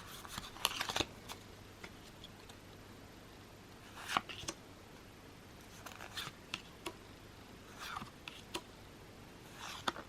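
Pokémon trading cards being handled and slid off one another one at a time, giving short scratchy card-stock slides and flicks every second or two.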